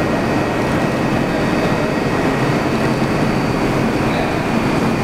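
New York City subway train running through the tunnel as it pulls away from the station, a steady rumble of wheels on track.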